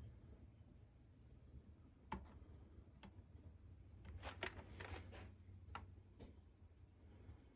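Faint sharp clicks, one at a time and then a quick cluster, as a fan's switch is pressed several times, over a low steady hum; the fan does not start.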